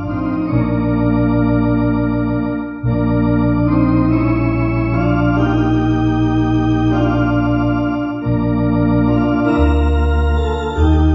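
An MD-10 EVO two-manual electronic organ playing a slow hymn in sustained chords over a held bass line. Chords change every few seconds, with two brief breaks between phrases, about a quarter of the way in and again about three quarters in.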